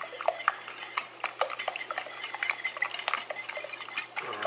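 Metal wire whisk beating a runny egg, milk and sugar mixture in a bowl: a quick, irregular run of light clicks and clinks against the bowl.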